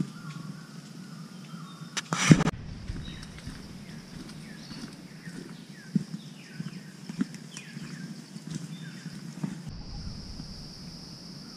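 Forest ambience: a steady high insect drone, with a bird giving a string of short falling whistled notes in the middle and soft footsteps on the trail's leaf litter. A brief loud rustle comes about two seconds in.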